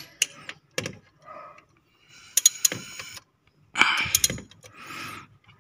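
Hand tools and metal parts clicking and clinking against each other in an engine bay, in a few short clusters, with a louder clatter about four seconds in.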